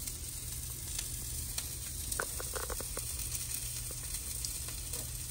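Steady sizzle of oil frying in a hot pan. About two seconds in come a few brief mouth sounds of biting into and chewing a soft bun.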